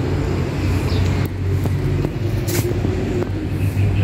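Steady low hum with a few light, sharp clicks scattered through it, as thread is worked through the looper of a Siruba 747 four-thread overlock machine.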